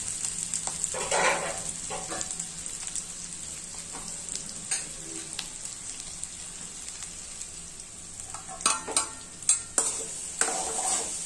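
Baby potatoes sizzling steadily in hot oil in an aluminium kadai, with a metal spatula scraping the pan now and then. Near the end come several sharp metal knocks and clinks as the aluminium lid is set on the pan.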